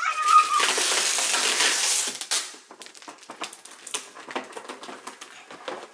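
Packaging being torn open and handled: a loud rustling tear for about two seconds, then scattered small clicks and rustles.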